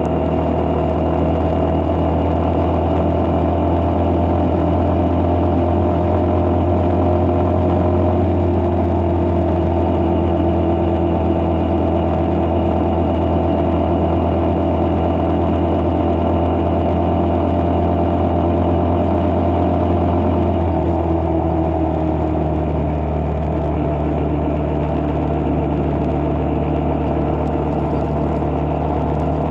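Engine of a moving road vehicle running steadily at cruising speed. About twenty seconds in, its note drops a little and changes.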